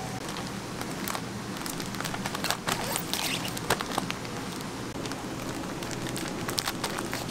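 Clear plastic film crinkling and crackling as gloved hands wrap and press it around roll cakes on a steel table, the crackles thickest midway, over a steady low hum.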